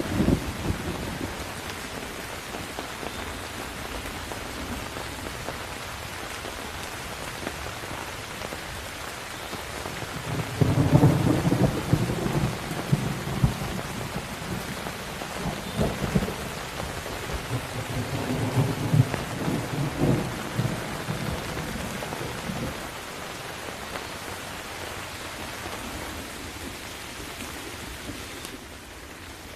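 Steady rain falling in a thunderstorm, with thunder rumbling twice: once about a third of the way in and again about two thirds of the way in.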